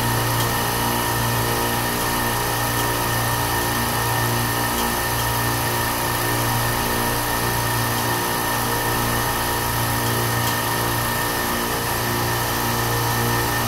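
Semi-hermetic reciprocating refrigeration compressors running: a steady machine hum with a strong low drone and several fixed tones above it.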